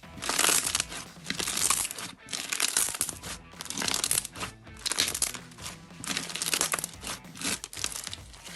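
Repeated crisp crunching and crinkling, in loud bursts about a second apart, with faint music underneath.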